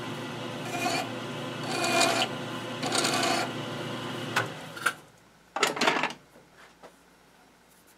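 Metal lathe running steadily, spinning a miter saw armature, with three scraping rubs against the turning copper commutator about a second apart; the lathe stops about four and a half seconds in, followed by a short rattle a second later.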